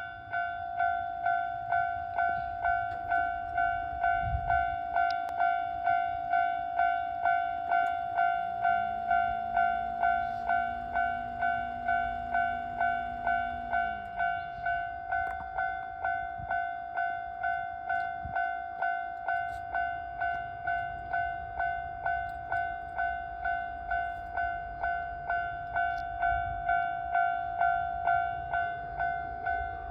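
Japanese railway level crossing's electronic warning bell ringing, a steady two-tone ding repeated about twice a second. A lower hum joins it for several seconds in the middle.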